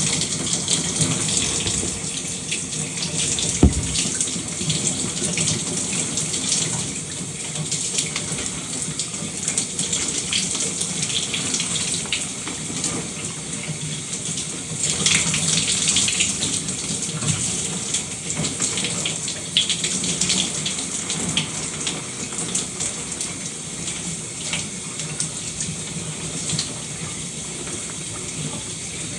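Shower running steadily, the spray splashing and pattering unevenly. There is one short knock about four seconds in.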